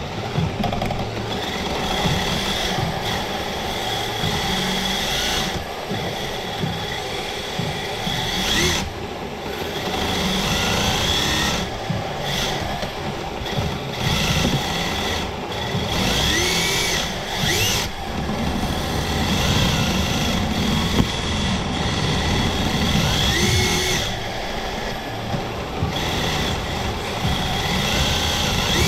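Redcat RDS RC drift car's electric motor and drivetrain whining close to an onboard camera, with the pitch gliding up each time it is throttled, several times over.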